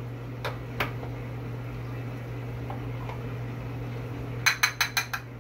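A cup scooping thick soup and knocking against a glass bowl. There are two light clicks about half a second in, then a quick run of about six taps near the end, over a steady low hum.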